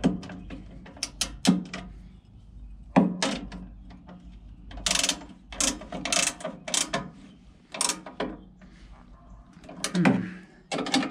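Wrench turning nuts onto the bolts of a blade grinder's steel guard: irregular short clicks and rasps of metal on metal, coming in quick runs.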